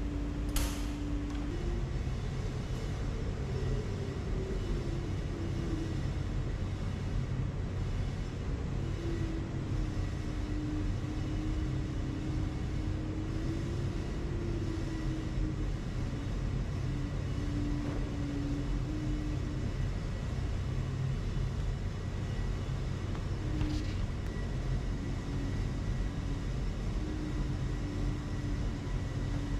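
Coin-laundry tumble dryers running with a steady low rumble and hum, with a slowly wavering tone over it. A dryer door latch clicks about half a second in, and another sharp click comes about three quarters of the way through.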